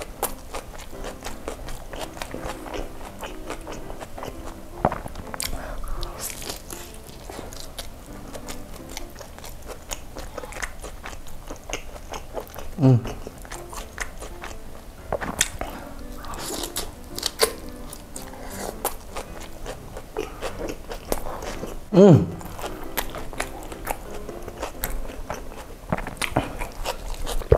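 Close-miked chewing and biting of a soft Turkish kebab wrap, with many small wet mouth clicks and smacks. Twice a short falling sound from the throat breaks through, the second the loudest.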